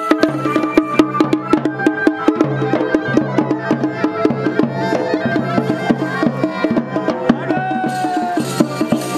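Traditional Indian music: quick, steady drum strokes under a sustained melody line.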